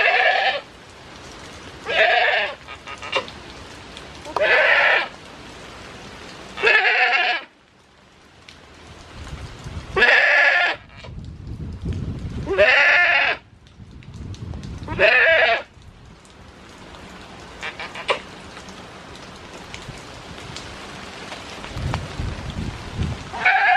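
Goat kids bleating again and again, about seven short wavering calls in the first sixteen seconds and another near the end, with steady rain falling throughout.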